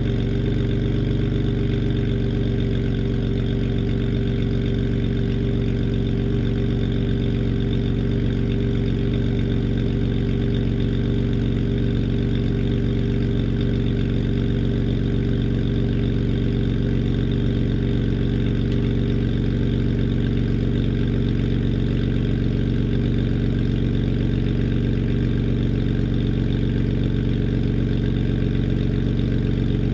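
Exhaust of a BMW 330i's N52B30 3.0-litre straight-six, fitted with a BMW Performance rear silencer and a gutted, straight-piped middle silencer, idling steadily during cold-start warm-up while the idle speed is still being regulated down.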